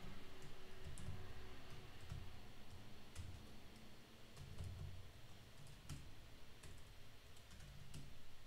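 Typing on a computer keyboard: faint key clicks at an irregular pace, with soft low thuds as the keys are pressed.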